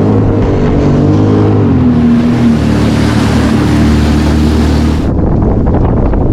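Sea-Doo personal watercraft engine running, its pitch dropping about two seconds in and then holding steady. A loud rushing hiss joins at about two seconds and cuts off suddenly near five seconds.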